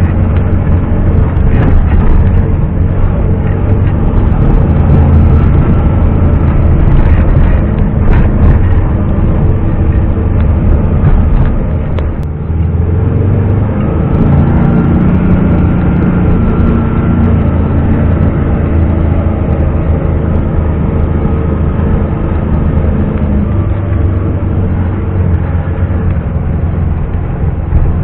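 ZAZ-968M Zaporozhets' air-cooled V4 engine running under way, a steady loud drone with a brief drop in level and change of pitch about twelve seconds in.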